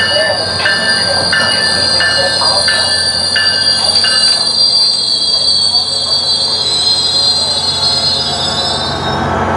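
SunRail commuter train on the move, its steel wheels giving a steady high-pitched squeal on the rails that cuts off near the end. During the first half a short tone rings again and again, about every two-thirds of a second, then stops.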